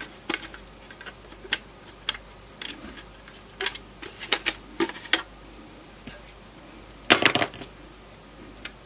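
Scattered sharp clicks and taps of a wireless router's plastic housing and circuit board being handled while its Wi-Fi antenna wire is worked loose, with a quick rattling cluster of louder clicks about seven seconds in.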